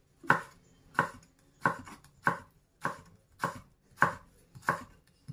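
Kitchen knife slicing cucumber on a wooden cutting board: about eight slow, evenly spaced cuts, each ending in a sharp tap of the blade on the board.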